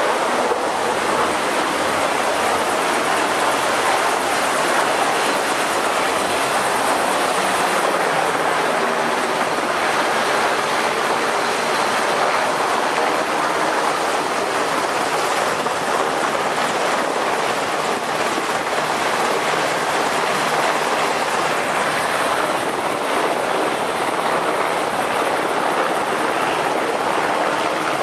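Steady loud rushing of wind and machinery on the deck of a ship under way, an even noise with no distinct events.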